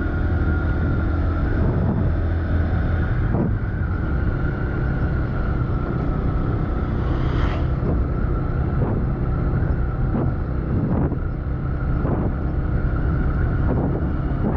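Vehicle engine running steadily while driving along a rough road, with a few brief knocks from bumps, one stronger about halfway through.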